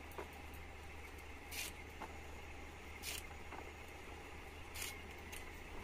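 Knife slicing through colocasia (taro) leaf stalks, a short crisp cut about every one and a half seconds, with fainter ticks between the cuts.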